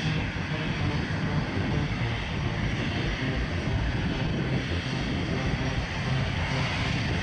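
Airbus A320-200's twin jet engines running at taxi power as the airliner rolls slowly past, a steady hiss with a deep rumble underneath.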